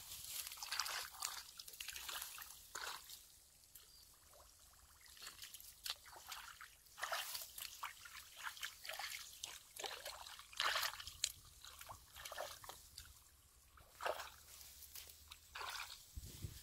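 Someone wading barefoot through shallow muddy water: irregular wet sloshes and squelches, one after another, at no steady pace.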